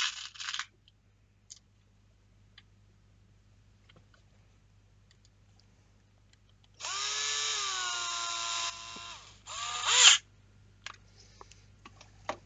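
Small screws rattling in a box as one is picked out. Then a cordless drill runs for about two seconds, driving a screw into a tapped hole in a resin tray part, and eases off. A shorter, louder burst follows whose pitch rises before it stops.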